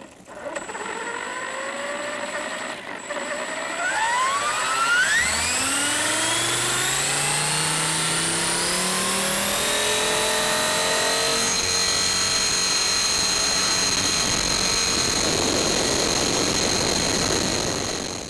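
Radio-controlled model helicopter's motor and rotor spooling up: a whine that rises steadily in pitch for about the first ten seconds, then holds at a steady high pitch.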